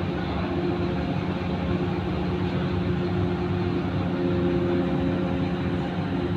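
Ship's diesel engines running steadily: a low, even hum with a few constant tones.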